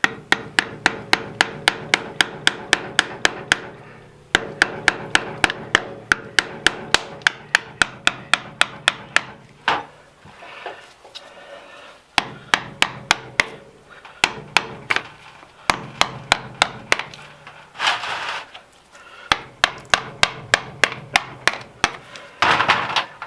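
A hammer rapidly tapping a screwdriver driven into a stuck motorcycle oil filter to knock it round and loose. The blows come about four a second in runs of several seconds, with short pauses between runs.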